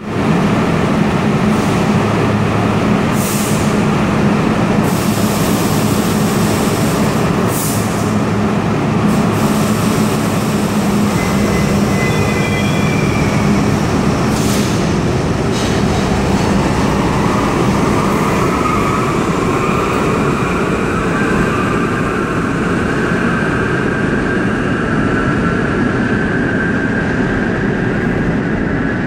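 R32 New York City subway train pulling out of the station: a loud, steady rumble of steel wheels on rail with a low hum. A few short high-pitched squeals come in the first half, and a whine rises slowly in pitch from about halfway on.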